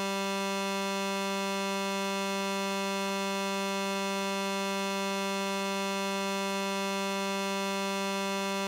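Electronic emergency alert tone: a single steady buzzy note, low-pitched and rich in overtones, with no change in pitch or loudness.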